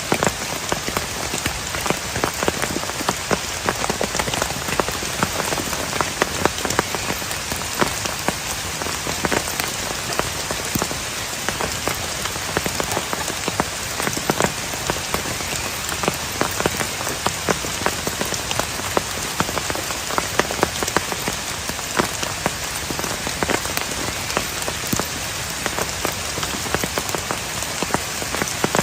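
Heavy rain falling steadily, with many sharp single drops striking close by over a dense even hiss.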